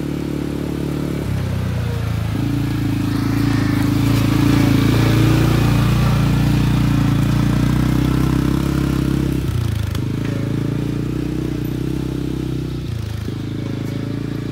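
CFMoto CForce 450L ATV's single-cylinder engine running under throttle. The revs ease briefly about a second in, pick up and run loudest through the middle, then ease and pick up again about ten seconds in and once more near the end.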